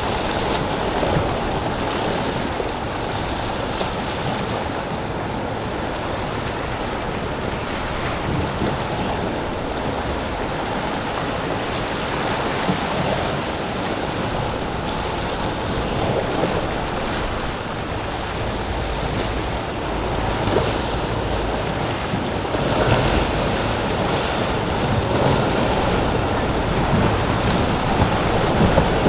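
Choppy sea and surf washing steadily, with wind buffeting the microphone and the wash and engine noise of powerboats running through the inlet, swelling a little as boats pass.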